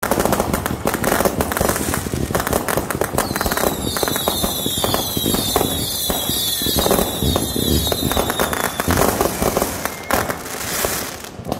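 Consumer fireworks firing in a barrage: rapid cracks and bangs of bursting shots and crackling stars. From about three to nine seconds in, a string of high whistles falls slowly in pitch. The barrage thins out near the end.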